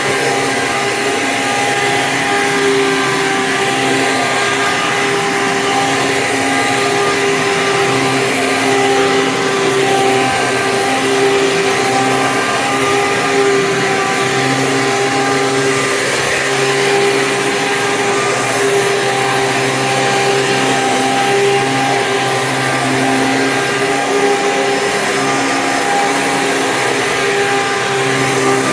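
A 2002 Hoover Sprint U5068-900, a 12-amp upright vacuum cleaner, running steadily. It gives a constant motor whine over the rush of air.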